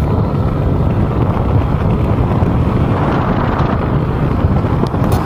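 Motorcycle riding along a road: steady engine and road noise, with wind buffeting the microphone.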